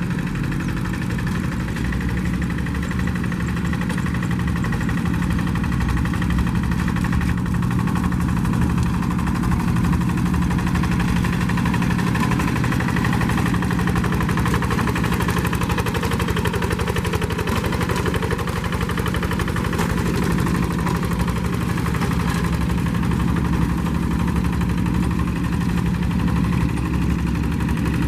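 Single-cylinder diesel engine of a walk-behind rice-field hand tractor, running steadily at an even speed.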